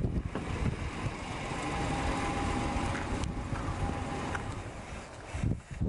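Wind buffeting the microphone, with a rushing noise that swells and then fades over a few seconds.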